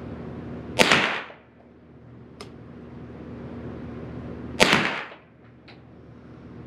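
Two shots from a Derya TM22 semi-automatic .22 LR rifle firing Federal Premium 40-grain hollow points, a little under four seconds apart, each echoing briefly in the indoor range. A faint click follows each shot.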